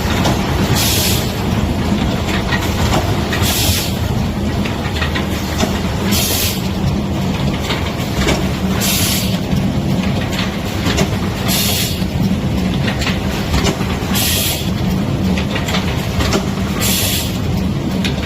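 Folding rigid-box making machine line running steadily with a low hum, with a short sharp hiss about every two and a half seconds, each cycle of the machine.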